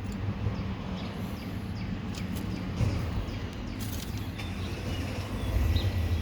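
An engine running steadily at a low, even hum, with a few light clicks and knocks over it.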